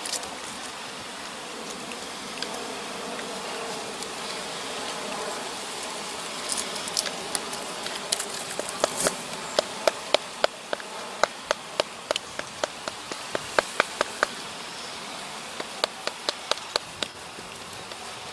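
Steel multitool tapping and pressing against a birch-bark cylinder and its wooden bottom: a run of sharp, irregular clicks and taps, about two a second, starting partway through and thinning out near the end.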